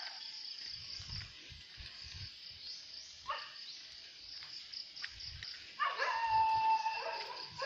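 An animal calling: a short call about three seconds in, then a drawn-out pitched call lasting just over a second near the end. Underneath are a steady high hiss and soft low thumps.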